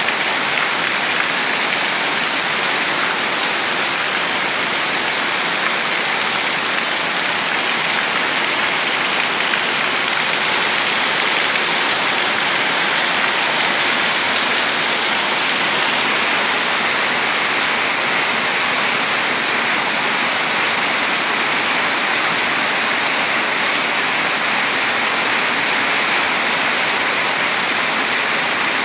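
Very heavy rain pouring down steadily, splashing into standing water on the ground and onto leaves and plant pots: a dense, even hiss with no let-up.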